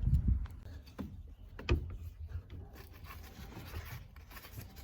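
Carpet and sound-deadening padding being handled and pushed around on a car floor: rubbing and rustling with small clicks, and one sharp knock a little under two seconds in.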